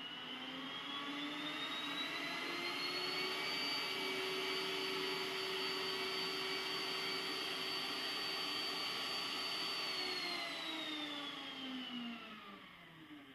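The iRobot Roomba s9+ Clean Base auto-empty dock's suction motor emptying the robot's dust bin. It winds up in a rising whine over the first few seconds, runs steady, then winds down and stops near the end.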